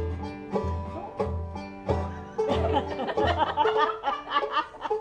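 Band music with no singing: banjo picking over a regular bass line. The bass notes stop about three and a half seconds in, leaving lighter plucked string notes.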